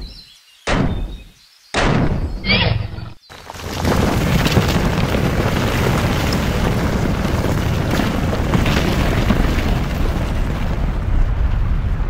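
Volcano eruption sound effect: a few deep booms in the first two seconds, then a steady low rumble from about three seconds in.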